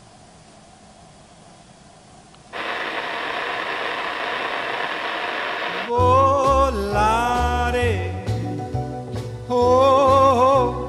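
A faint hiss gives way about two and a half seconds in to a steady rushing noise that starts suddenly and cuts off about six seconds in. Then a song begins: a singing voice over a stepping bass line.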